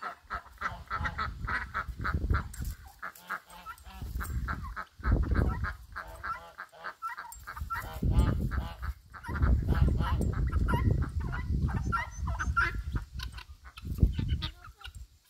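Geese honking, many short calls in quick succession, with stretches of low rumbling noise in the middle.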